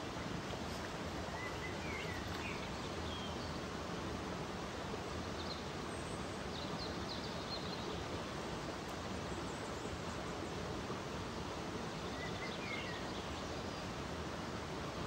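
Shallow mountain stream running over rocks, a steady rush of water, with a few faint bird chirps about two seconds in, around six to seven seconds in, and again near the end.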